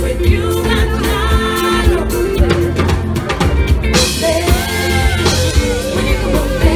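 Live band playing upbeat dance music on electric guitar, keyboard and drum kit, with a woman singing lead over a steady beat.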